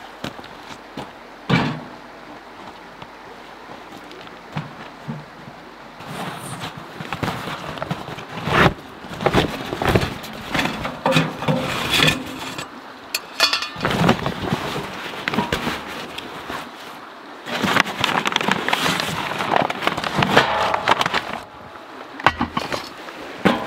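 Irregular sharp snaps and cracks with rustling, in bursts that come and go: dry sticks and brush being broken and handled to build a campfire.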